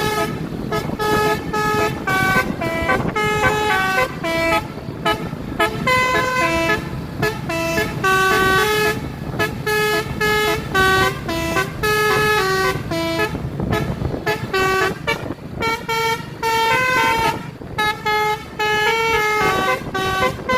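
Bus basuri musical air horn playing a continuous melody of short stepped notes, over a low rumble.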